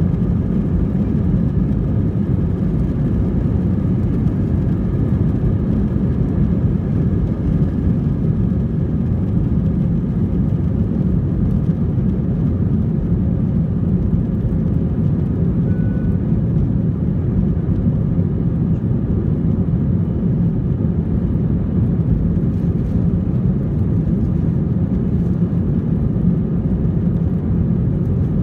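Cabin noise of an Airbus A321 at takeoff thrust, heard from a seat over the wing: a steady, loud roar of the jet engines and rushing air as the airliner leaves the runway and climbs out.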